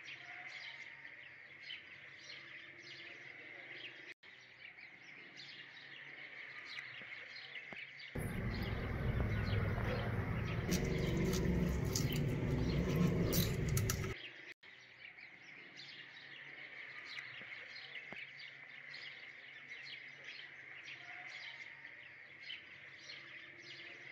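Birds chirping quickly and continuously. About eight seconds in, a louder stretch of about six seconds is added: a knife and fork cutting a grilled chicken breast on a plate, with sharp clicks of cutlery.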